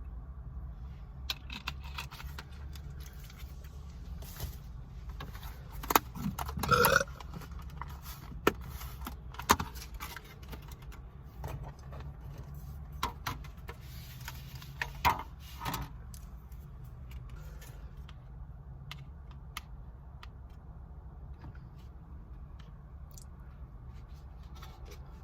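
Eating and food handling: scattered clinks, scrapes and rustles of utensils and takeout packaging. The loudest is a short pitched sound about six to seven seconds in. After about sixteen seconds only a few faint ticks are left over a steady low hum.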